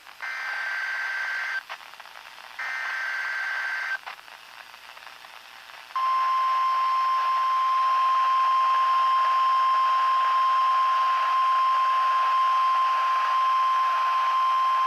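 A NOAA Weather Radio Required Weekly Test coming through a La Crosse S83301 weather radio's small speaker: two short screechy digital SAME header bursts about a second apart, then, about six seconds in, a loud steady single-pitch alert tone that holds on.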